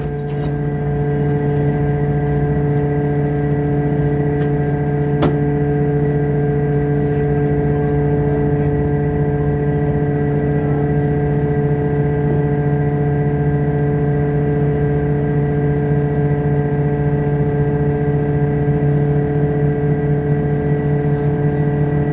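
Fishing boat's engine running at a steady speed, an even drone that holds unchanged.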